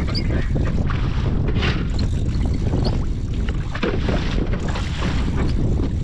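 Steady wind buffeting the microphone on a small open fishing boat at sea, with the wash of water around the hull underneath.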